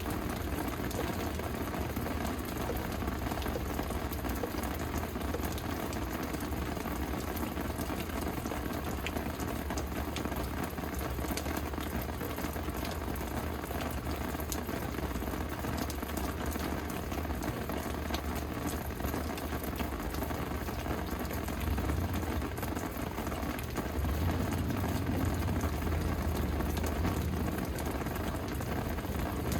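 Steady rain falling, a dense hiss of drops with many small individual drop ticks. A low rumble swells over the last few seconds.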